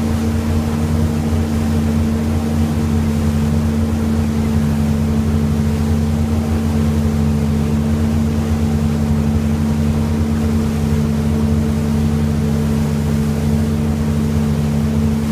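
Motorboat engine running steadily under way, heard from aboard: a constant low drone that holds one pitch throughout, over the rushing wash of the wake behind the boat.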